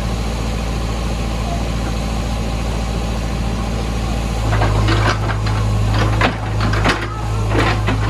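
JCB backhoe loader's diesel engine running steadily at a constant pitch, its note growing stronger about halfway in.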